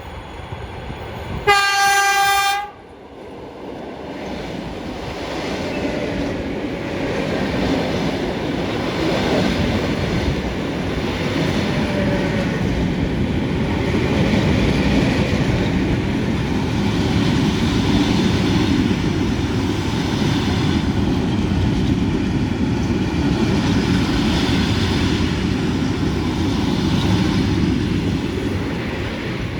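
The EP2DM electric multiple unit sounds its horn once, a single steady tone about a second long, about two seconds in. Then the train's running noise and wheel-on-rail clatter build up and stay loud, easing slightly near the end.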